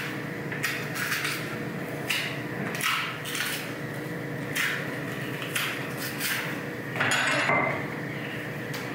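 Green plantain skin being pried and peeled away from the fruit by hand: short scraping, peeling sounds about once a second, a longer one about seven seconds in, over a steady low hum.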